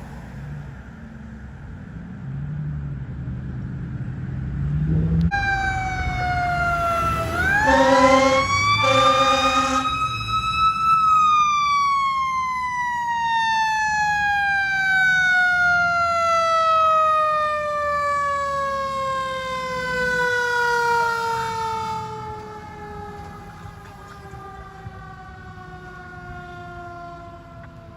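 Fire truck's Federal Q mechanical siren coming in about five seconds in over the truck's engine rumble, winding up steeply to a high wail and then slowly winding down, falling in pitch. Two short air horn blasts sound over it as it spins up.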